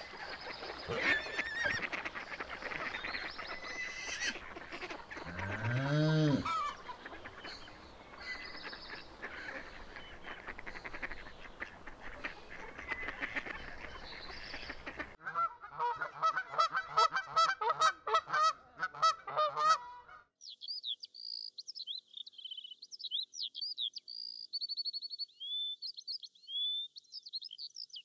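Farmyard fowl calling, with rapid honk-like calls coming thick for about five seconds midway, and one low drawn-out call about six seconds in. For the last several seconds only small birds are heard singing, in high sliding chirps.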